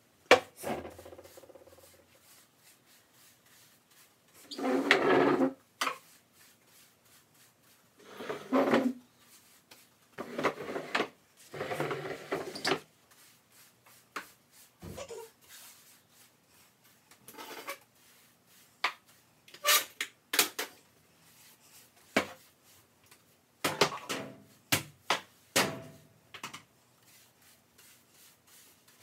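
Kitchen cleaning sounds: irregular knocks, clatters and rubbing of things being moved, wiped and put away, with drawer or cupboard sounds. They come as scattered bursts, with longer scraping or rubbing stretches in the first half and many short sharp clicks and knocks later on.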